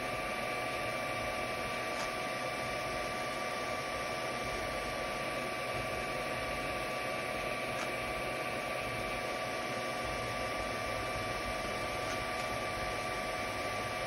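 FDM 3D printer running mid-print: its cooling fans whir steadily, a hiss with a few steady high whining tones. There are two faint ticks, one a couple of seconds in and one about halfway through.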